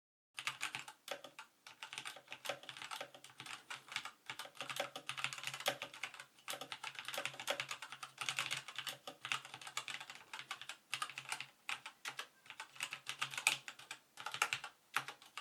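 Fast typing on a Razer BlackWidow Ultimate Stealth mechanical keyboard with Razer Orange tactile switches, keys clicking in quick irregular runs broken by a few short pauses.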